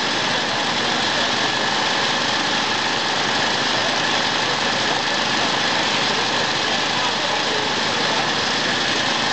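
An engine running steadily at idle, an even, unbroken noise with no change in pitch or level.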